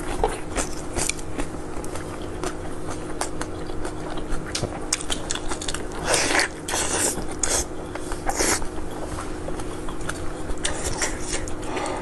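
Close-up eating sounds: crunchy bites into crisp roasted food and chewing, with louder crunches about six seconds in and again about eight and a half seconds in, over a steady low hum.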